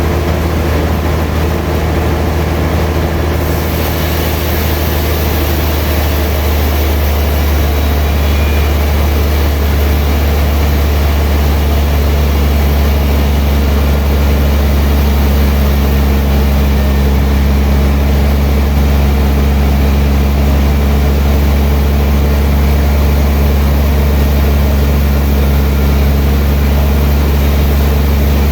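Sawmill machinery running steadily, with a strong low hum that never lets up.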